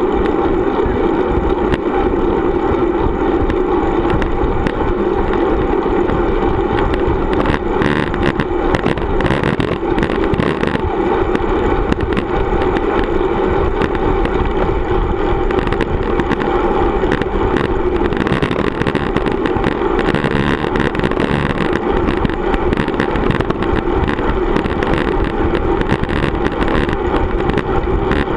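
Steady rushing wind and road noise on a camera riding on a moving road bicycle, with scattered small knocks from bumps in the road.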